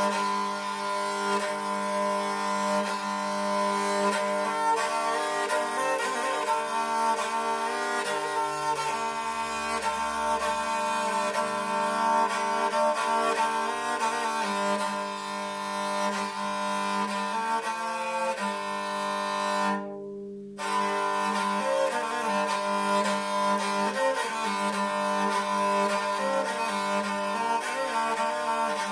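Talharpa, a bowed lyre, played with a bow: a steady drone of several strings sounding together under a shifting melody, with a brief break in the higher notes about twenty seconds in.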